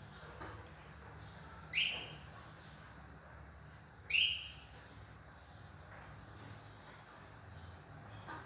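Canaries calling: two loud calls that sweep down in pitch, about two seconds and four seconds in, and a scatter of short, faint high chirps, over a low steady hum.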